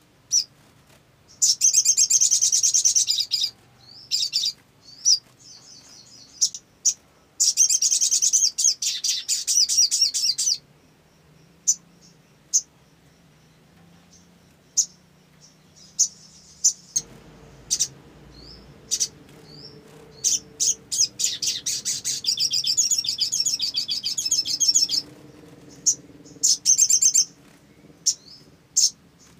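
Olive-backed sunbird (sogon) singing: rapid, high-pitched trills in several bursts of one to three seconds, with single sharp chirps and short upward notes in between.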